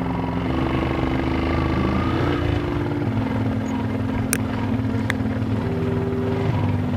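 A vehicle engine running steadily on the move, its pitch shifting up and down in steps a few times.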